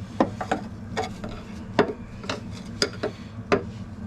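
Irregular metal-on-metal clinks and taps of a screwdriver prying at a spring-loaded clip that holds a brake line in place, about ten sharp clicks over a few seconds.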